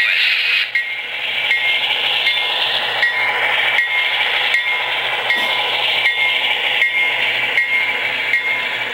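HO-scale model train rolling past close by: a steady whir of wheels and drives on metal rail, with a light, regular clicking about once every three-quarters of a second.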